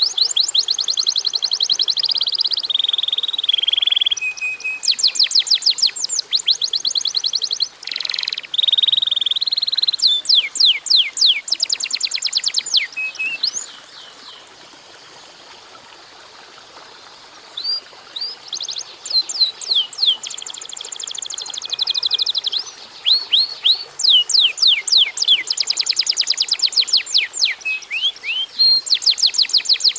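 Domestic canary singing in long runs of rapid repeated notes and trills, with short held whistles between them. It breaks off for a few seconds about halfway, then resumes.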